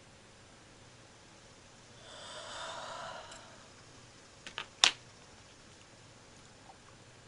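A person yawning: one breathy yawn lasting just over a second. A moment later come three quick sharp clicks, the last one the loudest.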